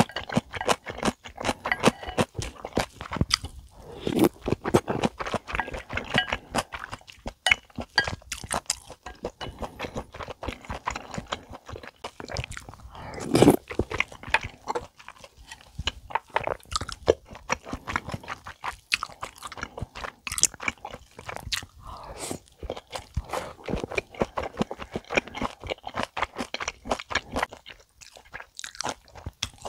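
Close-miked chewing of a mouthful of tteokguk, chewy rice cake slices and meat dumpling in broth, as many quick, wet mouth clicks, with one louder, deeper mouth sound about halfway through.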